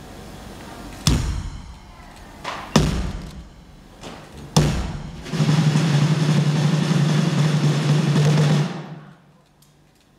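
Live drums striking three sharp accents about a second and a half apart, then a loud held passage with drums over a steady low note, fading out about nine seconds in.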